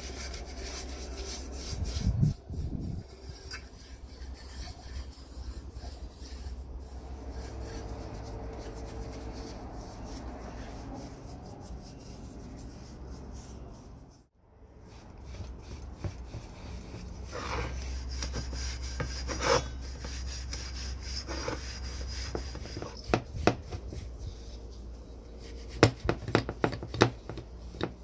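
A bristle brush scrubbing liquid over the cast metal parts of a chain hoist, a steady scratchy rubbing, with a few sharp clicks and knocks in the second half.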